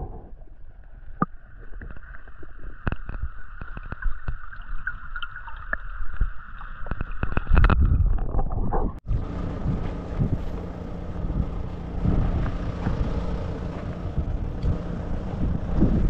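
Muffled underwater sound from a camera held in a shallow stony river: low rumble with scattered sharp clicks and a faint steady whine. About nine seconds in it cuts abruptly to open-air rushing noise of wind on the microphone.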